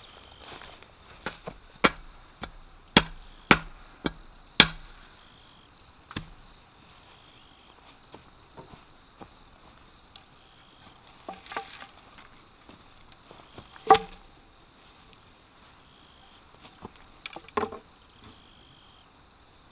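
Sharp knocks, about two a second for the first few seconds, of a metal bar pounding a bamboo post into the ground. Later come scattered knocks and clatter of bamboo poles being handled, one loud one about two-thirds of the way in, over a steady chirping of insects.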